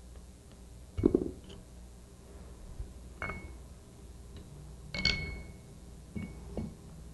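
Light metal knocks and clinks from a screwdriver tapping the metal seal seat of a mechanical seal out of a sliding-vane pump head. There is a dull knock about a second in, then two clinks that ring briefly, about three and five seconds in, and two small taps near the end.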